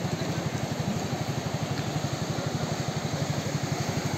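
An engine idling with a steady, fast, even pulsing, over the hiss of the surf.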